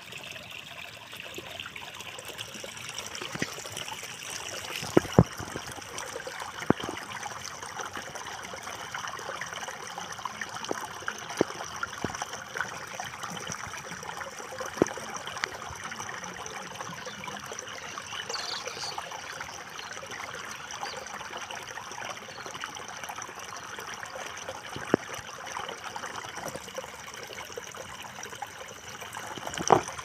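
Shallow water running fast through a grassy channel, a steady trickling and burbling, with a few short sharp clicks scattered through it.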